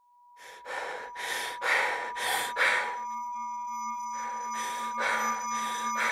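Electronic intro: a steady high sine tone, joined about halfway by a lower steady tone, under evenly spaced breathy hissing bursts about two a second that pause briefly in the middle.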